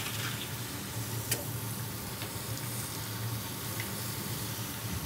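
Food sizzling on a hot flat-top griddle: a steady frying hiss, with a few faint clicks.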